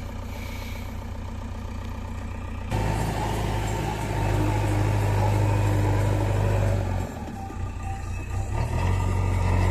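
JCB backhoe loader's diesel engine running, turning abruptly louder about three seconds in as the front bucket scoops and lifts a load of earth and brick rubble. The engine note dips about seven seconds in, then rises again.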